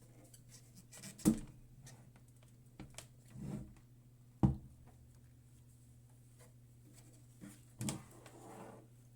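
Handling of a slow cooker and its parts: a few sharp knocks and clicks, the loudest about a second in and again midway, with brief rustling between, over a steady low hum.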